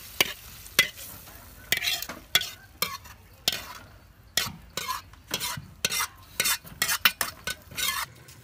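Metal ladle scraping and knocking against a wok over and over as fried ingredients are pushed out into a pot. The strokes are short and irregular and come faster in the second half.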